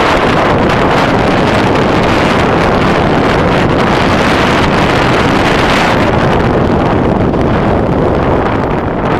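Loud, steady wind buffeting on an action camera's microphone from a fast mountain-bike descent, its hiss thinning a little after about six seconds.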